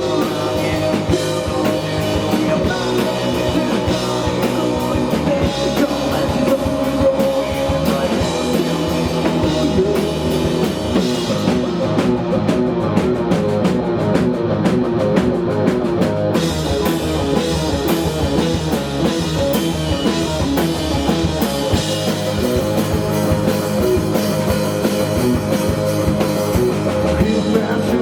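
Indie rock band playing live: a full band with drum kit and guitar. The bright top of the sound, cymbals and treble, drops out for about four seconds starting about twelve seconds in, then comes back in sharply.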